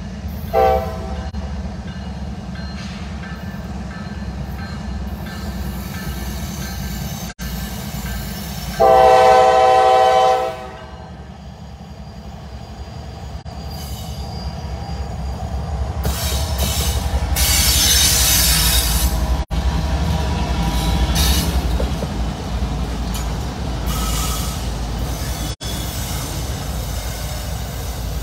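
CSX diesel freight locomotive's air horn sounding for a grade crossing: a short blast about a second in, then a long, loud blast at about nine seconds. After that, the rumble of the train builds as the locomotives and autorack cars roll past close by, with a burst of hissing wheel-on-rail noise around halfway through.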